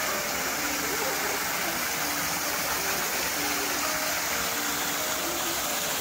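Small waterfall spilling in thin streams down a rock face into a shallow pool: a steady, even rush of splashing water.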